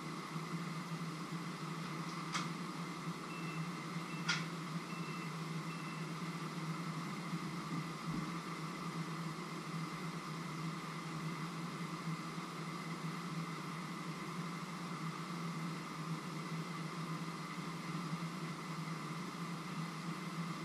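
Steady mechanical hum of a running kitchen appliance motor or fan. Two light clicks come a few seconds in, along with a few short, faint high beeps.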